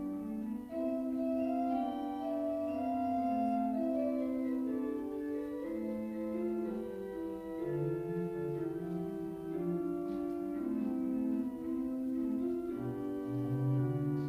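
Church organ playing a slow prelude: sustained chords that move to a new chord every second or so, with a deeper bass line entering about eight seconds in.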